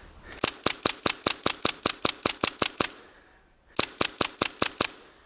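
Tippmann M4 HPA airsoft rifle firing a quick string of about a dozen shots at roughly five a second, then, after a pause of about a second, six more.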